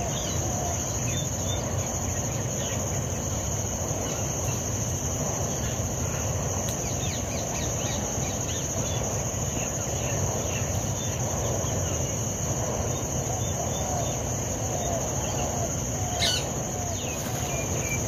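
Outdoor field ambience: a steady high-pitched insect drone, like crickets, runs throughout under many short scattered bird chirps and calls. A single sharp click comes about 16 seconds in.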